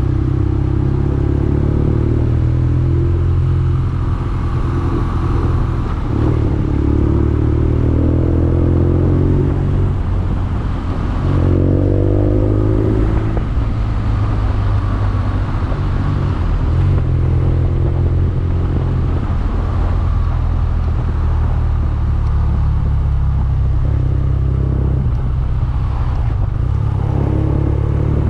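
BMW R nineT's 1170 cc air/oil-cooled boxer twin running on the road, the engine note climbing in pitch several times as the bike accelerates.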